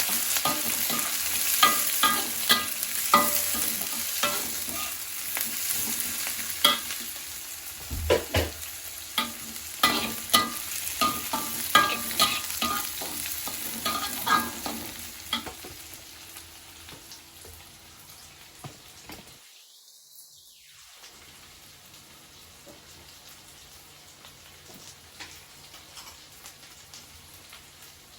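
Sliced shallots frying and sizzling in hot oil in a pan, stirred with a spatula that clicks and scrapes against the pan. The sizzle and stirring fade over the second half, leaving a quieter, steady sizzle.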